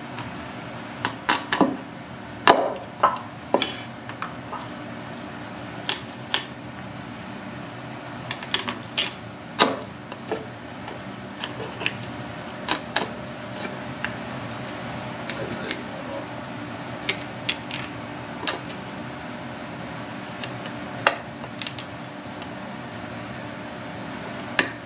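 Heavy kitchen knife knocking and tapping on a wooden cutting board as it cuts through snow crab legs and shell, in irregular sharp strikes, a few louder than the rest, over a steady low hum.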